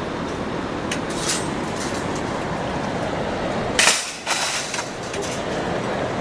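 Metal shopping cart being pushed along: a steady rumble of the wheels rolling, with the wire basket rattling and clinking, loudest just under four seconds in.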